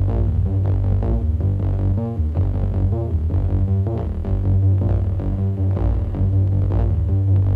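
Instrumental passage of a Romanian party song in the manele style: an electronic beat over a deep, steady bass, with a quick melodic line on top and no singing.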